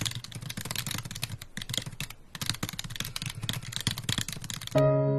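Keyboard typing: quick irregular runs of key clicks with short pauses, stopping near the end as a sustained electric-piano chord comes in.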